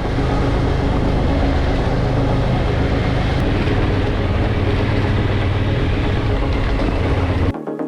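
Motorcycle engine running at a steady speed with heavy wind and road noise while riding. It cuts off abruptly near the end.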